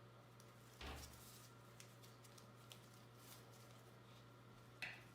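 Faint handling sounds of a rubber band being fitted onto a 3D-printed PETG plastic headband: light ticks, a soft thump about a second in and a sharper click near the end, over a steady low hum.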